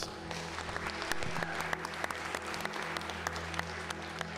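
A roomful of people applauding: dense, even clapping throughout, over a low steady tone.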